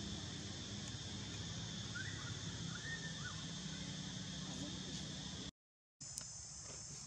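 Steady outdoor insect drone, high and even, over a low hum. A few faint high chirps come about two to three seconds in. The sound drops out completely for half a second near the end, then returns.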